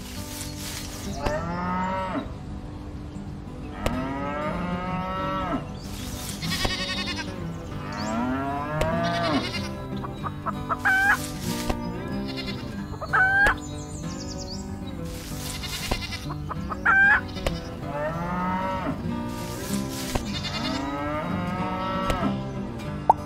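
Cattle mooing over and over, one call every second or two, with a few shorter, sharper higher calls, likely poultry, in between.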